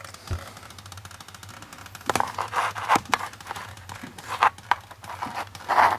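Irregular rustling and scraping handling noise close to the microphone, with a few clicks, starting about two seconds in.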